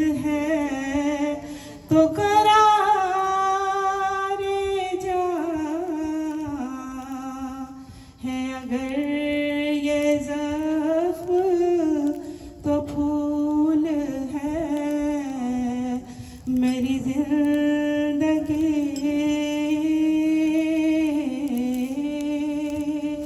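A woman singing an Urdu naat (devotional song in praise of the Prophet) solo and unaccompanied into a microphone, in long drawn-out phrases with ornamented glides and brief pauses for breath.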